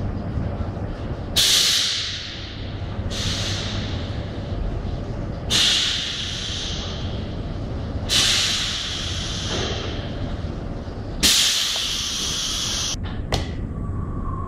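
Inline magnetron sputtering coating line running with a steady low hum, broken by five sudden hisses of air venting. Each hiss fades over a second or so; the last cuts off abruptly and is followed by a couple of sharp clicks.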